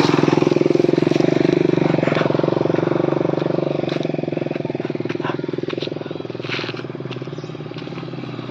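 Motorcycle engine running steadily at close range, then growing gradually fainter as the bike moves away.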